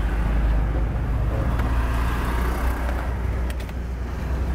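Steady low rumble of street traffic with motorbikes, and a few short sharp clicks about three and a half seconds in.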